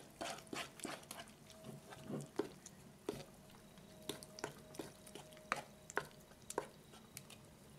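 Metal spoon stirring flour, kefir and yeast water into a thin batter in a bowl. The spoon clicks and scrapes against the bowl in an irregular run of taps, thicker at first and sparser later on.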